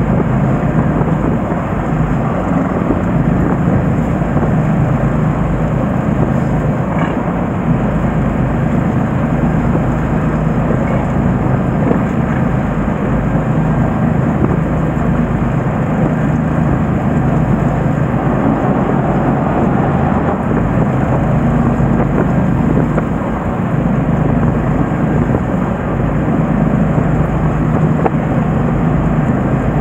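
Steady low rumble of a fishing boat's engine mixed with wind and water noise on the open sea, with no change in level.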